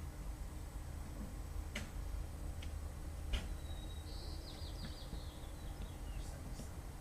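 Outdoor unit of a Mitsubishi ducted heat pump with an inverter-driven variable-speed compressor running, a quiet steady low hum. Two faint clicks and a short high trill, like a bird, about four seconds in, sit over it.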